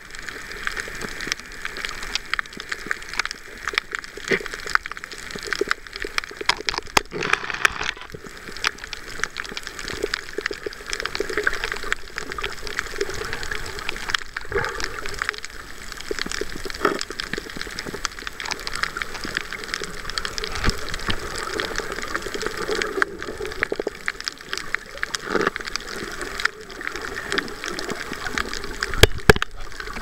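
Underwater reef sound: a steady watery hiss full of crackling clicks and pops, among them the crunching of a parrotfish biting and scraping coral with its beak. A few sharper cracks come near the end.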